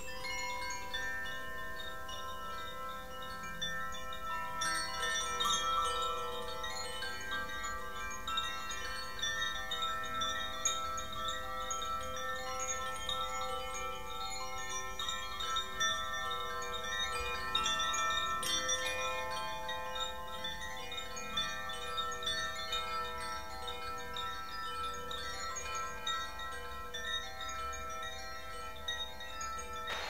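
Wind chimes ringing, many overlapping tones that sustain and blend into one another, with brighter high notes joining about four and a half seconds in.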